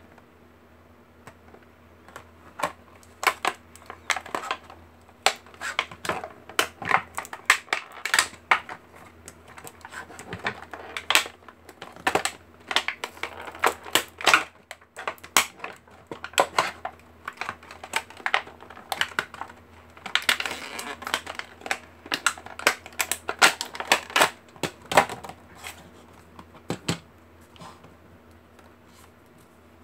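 Plastic blister packaging and its cardboard backing crackling and crinkling in quick irregular bursts as it is pulled open by hand. The crackling thins out and stops near the end.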